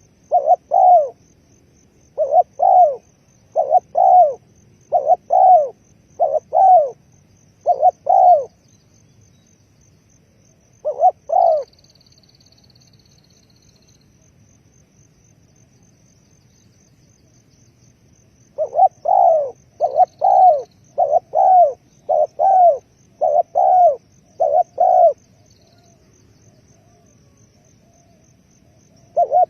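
Spotted dove cooing: a run of short coos in pairs and threes, about two phrases a second, stops about twelve seconds in and starts again about seven seconds later. A faint high twitter from another small bird sounds briefly during the pause, over a faint steady high-pitched whine.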